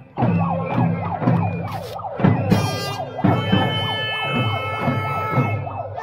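Siren-like wailing that rises and falls rapidly, over music with a steady pulsing beat; about three seconds in, held steady tones join.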